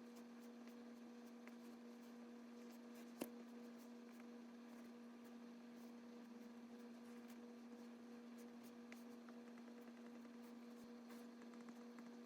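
Faint stylus taps and strokes on a tablet screen over a steady low electrical hum, with one sharper tap about three seconds in.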